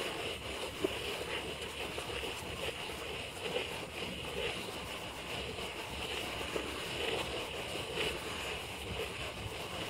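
Steady rushing noise with faint, irregular crackles scattered through it.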